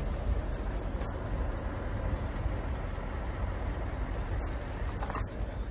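Mercedes-Benz O 404 coach's diesel engine idling, a steady low rumble, with a couple of short clicks over it.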